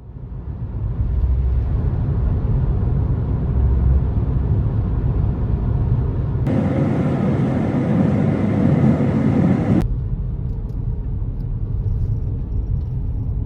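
Steady low road and engine rumble of a moving car, heard from inside the cabin. From about six and a half to ten seconds in, a louder, hissier stretch starts and stops abruptly.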